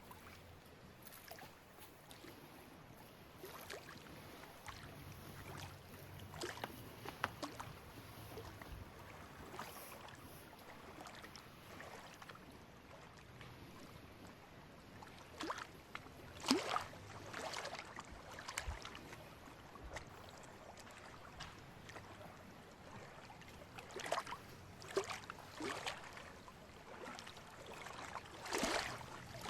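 Faint water splashing and lapping in irregular small bursts over a low steady background, livelier in the second half.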